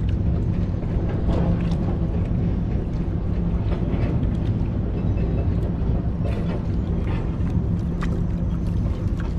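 Small boat engine running with a steady low drone, with wind on the microphone and a few faint clicks from handling the fish and line.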